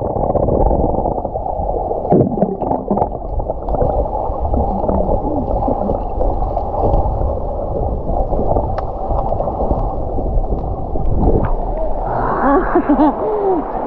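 Muffled rushing and gurgling of stream water heard with the microphone underwater, dull and cut off above the low range, with small clicks and bubbling. Faint muffled voices come through near the end.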